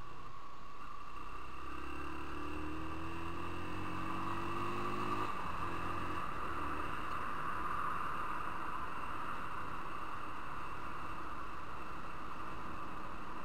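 Motorcycle engine accelerating, its note rising for about four seconds, then cutting off and coming back briefly before dropping away under a steady rush of wind and road noise.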